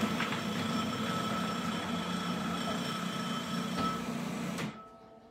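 Food processor motor running steadily while the wet ingredients are blended into the flour and cut-in butter for a scone-style dough, then switched off abruptly about four and a half seconds in.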